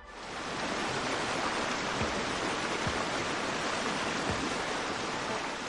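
Steady rushing of fast-flowing floodwater in a channel, fading in at the start, with a few faint low thumps.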